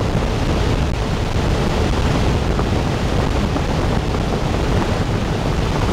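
Subsonic wind tunnel running with air moving at about 40 mph: a steady rushing noise of fan and airflow, heaviest in the low end.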